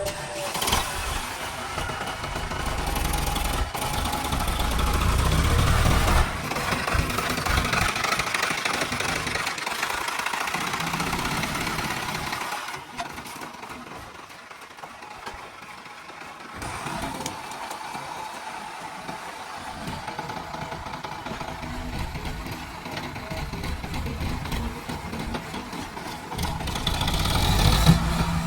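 Heavy diesel engine of a JCB backhoe loader working. It rises in revs over the first few seconds, holds, eases off about halfway through, then builds again near the end.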